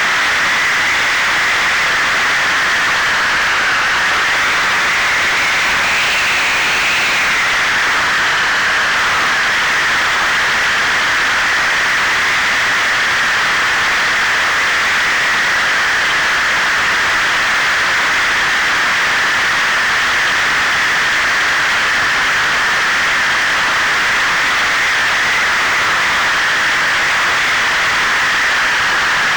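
Propeller and electric motor of an FPV wing in flight, heard through the onboard camera's microphone under steady wind rush. The whine rises in pitch about six seconds in, then drops back and holds steady.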